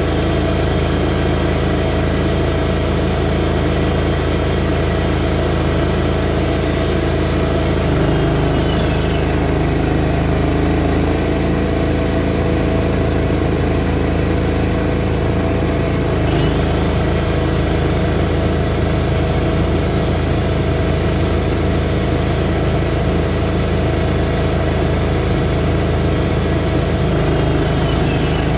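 Greens mower engine running steadily while mowing a putting green. About every eight seconds there is a short rising whine and a shift in the engine tone.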